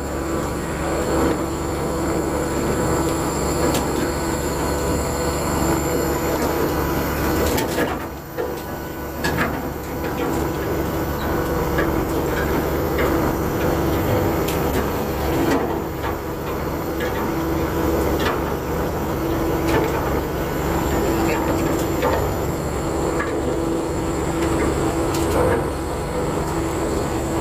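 Ship's anchor windlass hauling in the anchor chain: a steady mechanical drone with a thin high whine and scattered clanks, over the ship's engine. The whine drops out about six seconds in and comes back near the end.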